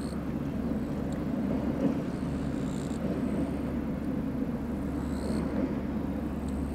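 Kyoto Tango Railway KTR 700-series diesel railcar, the Tango Kuromatsu, running across a steel railway bridge, heard as a steady low rumble of engine and wheels.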